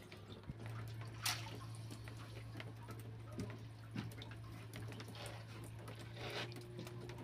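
Water splashing and dripping in short, scattered bursts with small clicks, over a steady low hum.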